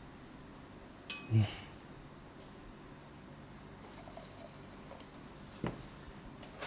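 Quiet room tone with a soft knock about a second in and a sharp click near the end.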